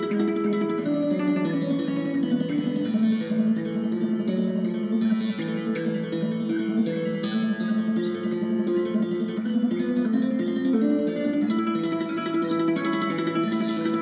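Background music: a plucked guitar piece with a moving melody over steady chords.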